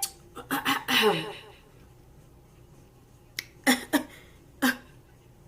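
A woman's brief wordless vocal sounds in the first second or so, including one falling glide. A few seconds in come four short, sharp snaps about a third of a second apart, like finger snapping.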